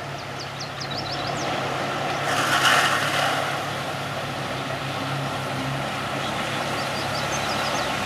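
Jeep Wrangler's engine running steadily as it wades through a river with the water up to its doors. Water sloshes and rushes against the body, swelling to its loudest about two and a half to three seconds in.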